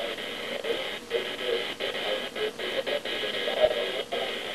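Electric hair clippers buzzing steadily as they shave a man's head, the hum broken by a few brief dips.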